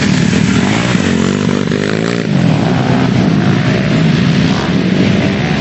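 Motocross motorcycle engines running at high revs, their pitch rising and falling.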